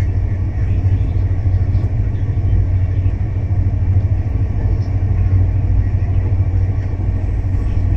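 Rajdhani Express passenger coach running at high speed, heard from inside the coach: a steady low rumble of wheels on the rails.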